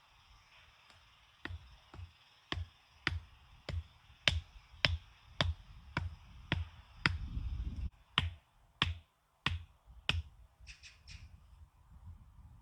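A steady series of sharp knocks, about one every 0.6 seconds, each a dull thud with a bright crack on top. They start about a second and a half in and stop near ten seconds, followed by a few quick faint ticks, over a low rumble.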